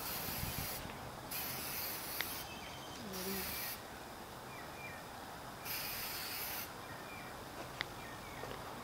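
Aerosol spray-paint can hissing in four short bursts, each about half a second to a second long, with a couple of sharp little clicks between them.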